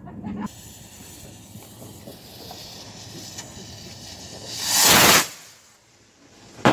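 Fireworks going off: a steady hiss, then a loud rushing burst about five seconds in, and a single sharp bang at the very end.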